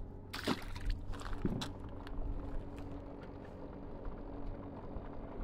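A steady low motor hum with a few brief splashes or knocks about half a second and a second and a half in.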